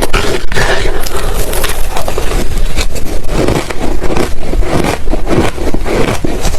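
Ice being chewed close to the microphone: a loud, dense run of crunches.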